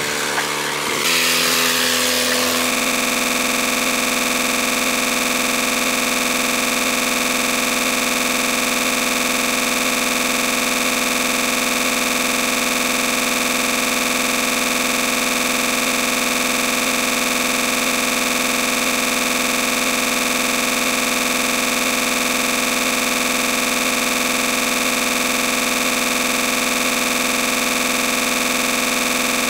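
A steady, unchanging buzzing drone made of several fixed tones that sets in about two and a half seconds in and holds without any change in pitch or loudness.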